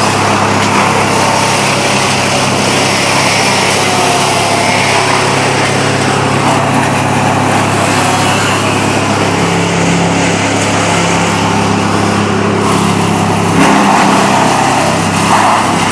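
Engine of the tree crew's equipment running steadily and loudly, its note shifting a little near the end.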